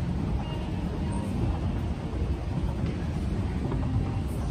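Busy walk-through ambience: a steady low rumble with faint, indistinct voices of people passing by.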